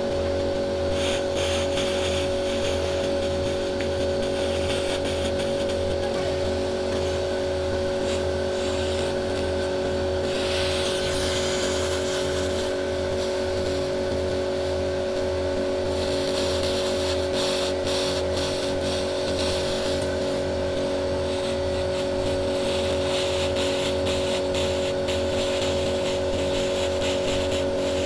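200 W pulsed laser cleaning machine ablating paint and putty off a car body panel: a steady buzzing hum with a fast crackle of the laser pulses hitting the coating, the crackle louder in stretches.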